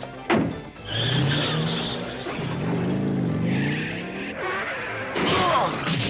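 Cartoon soundtrack effects: a sharp hit about a third of a second in, then a long noisy rush carrying a low tone that rises and falls, and another burst near the end.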